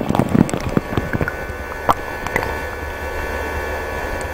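Underwater sound picked up by a camera dipped beside a kayak: a steady low hum with scattered clicks and knocks, thickest in the first second.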